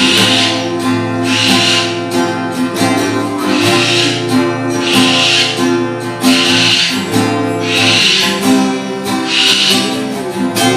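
Instrumental passage of a pop song: strummed acoustic guitar over held accompaniment, with a regular pulse about every one and a half seconds.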